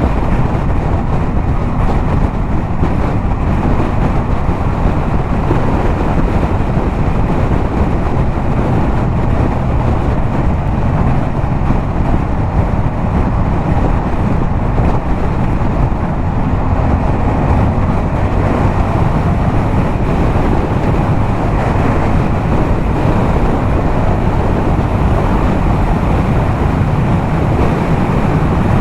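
Yamaha MT-07 motorcycle's 689 cc parallel-twin through a LeoVince aftermarket exhaust, cruising at a steady highway speed, with wind rushing over the camera microphone.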